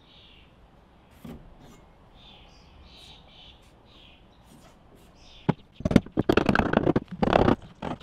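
Faint pencil scratches on a wooden ceiling joist, then from about five and a half seconds in a quick run of hammer blows on the ceiling framing, driving nails into the wood.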